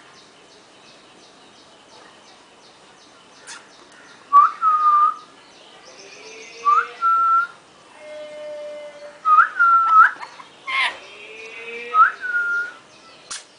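A talking parrot whistling: four short whistles spaced a few seconds apart, each a quick upward swoop into a held note. A brief harsh call comes near the end.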